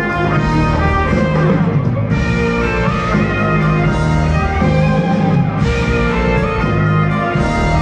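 Live rock band playing, with electric guitar over bass guitar, keyboards and drums, loud and steady.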